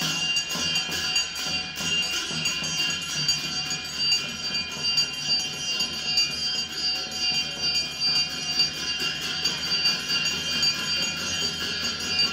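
Music for the Tamang Badel Nach folk dance: a constant jingling of bells over a pulsing rhythm.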